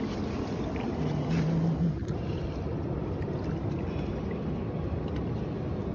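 Steady low rushing noise of wind across the microphone and moving water along the rocks, with a brief low hum a little after a second in.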